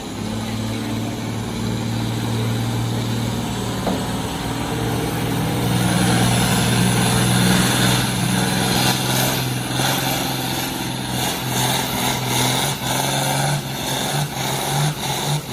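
Farm tractor engine working hard under load while pulling a weight-transfer sled in a tractor pull. The engine holds a steady, loud drone that climbs slightly about six seconds in, with rougher noise and irregular sharp ticks building in the second half as the pull goes on.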